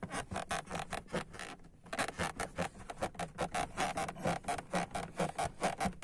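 Closed car door of a BMW E36 being jerked up and down by its handle, creaking and rubbing against its latch and seals in quick repeated strokes, about five a second.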